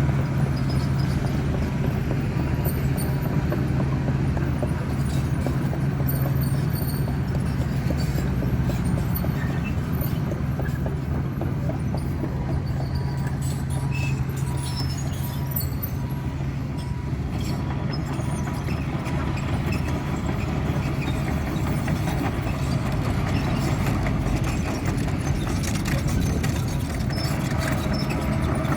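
Heavy diesel engine of earthmoving machinery running steadily, with a constant low hum.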